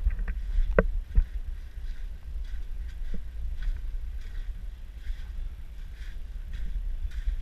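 Footsteps of someone walking over sand and rock, roughly two steps a second, over a steady low rumble of wind and handling on the microphone, with a couple of sharp knocks about a second in.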